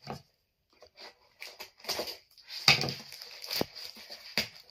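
Scissors cutting into a padded plastic postal mailer: irregular snips and crinkling of the packaging, starting about a second in.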